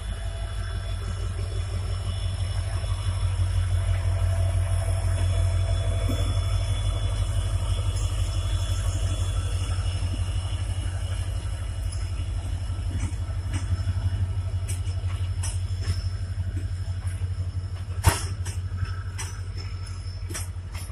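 EMD WDP-4D diesel locomotive, a 16-cylinder two-stroke, running past with a steady low rumble that is loudest a few seconds in, followed by its passenger coaches rolling by. In the second half the wheels click over rail joints, with one sharp click near the end.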